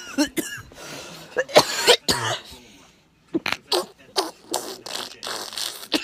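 A man coughing in a fit: a string of harsh coughs with short breaths between them, the loudest about a second and a half in, then a brief pause and a run of shorter coughs.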